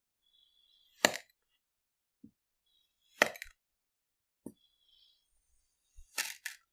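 Kinetic sand being sliced with a thin flat cutter: three short, sharp cuts, about a second in, about three seconds in and near the end, with two faint taps between.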